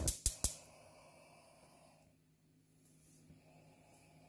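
Four quick, sharp clicks in the first half second, then a faint, steady hiss from a gas stove burner heating an empty steel wok.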